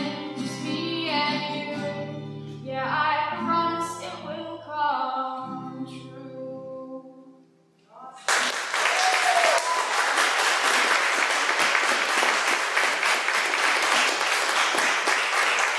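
The last sung lines of a song with strummed acoustic guitar, the final chord dying away to near silence about seven seconds in. Applause then starts suddenly and continues steadily.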